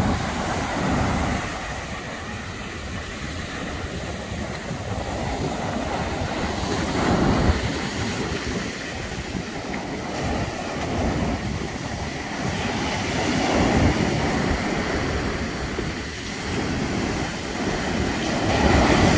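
Wind buffeting the microphone over the steady wash of surf on a beach, swelling every several seconds as waves break.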